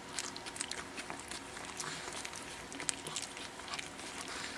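Pekingese puppies tussling and mouthing on a fabric blanket: scattered soft clicks and rustles.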